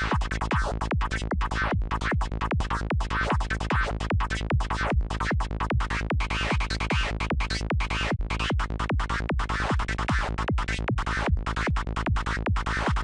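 A dark, FM-like synth lead patch built in Native Instruments Massive, looping over a psytrance kick and bassline at 150 BPM. The lead is chopped into fast, even pulses and warbles in the upper mids.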